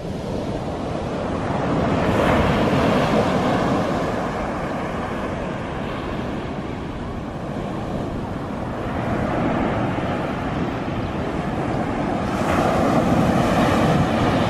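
Ocean surf breaking close to shore, a steady wash that swells louder three times as waves break and roll in.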